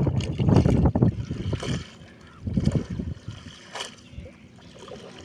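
Water splashing and streaming off a wet cast net as it is hauled out of the pond and bunched up by hand. It is loudest in the first second, then a couple of softer splashes follow.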